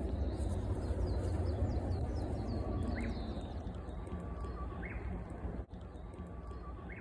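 Japanese bush warbler (uguisu) singing its 'hokekyo' song three times, each phrase a held whistle followed by a quick upward note. Another bird's faint high chirps come in the first couple of seconds, over a steady low background rumble.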